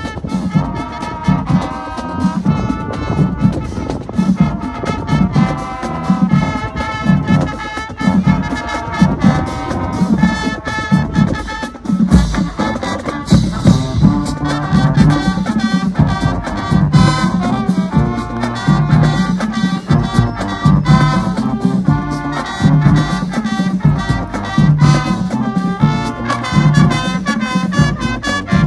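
High school marching band playing live: loud brass carrying the tune over a steady drumline beat, with heavy low brass and drum hits pulsing in time.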